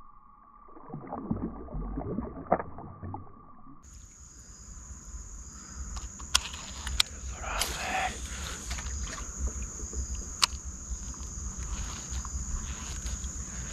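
A fish splashing at the water's surface near the kayak, muffled, over a thin steady tone. About four seconds in the sound changes to a steady high insect buzz over a low rumble, with a few sharp clicks.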